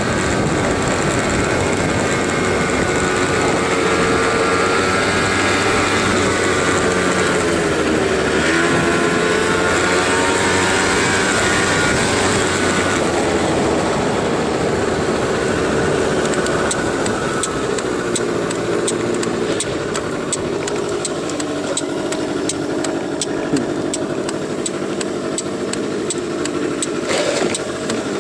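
Motor scooter engine running on the move with wind noise, its pitch rising and falling with the throttle. In the second half the engine note settles lower and a fast run of sharp clicks joins it.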